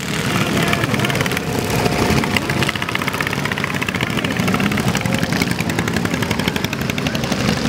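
Several ride-on lawn mowers and garden tractors racing past, their small engines running together in a steady, overlapping buzz whose pitch shifts as machines go by.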